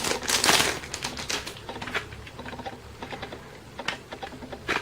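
Sealed CD album packaging being handled and opened: a loud rustle about half a second in, then a run of light irregular clicks and taps.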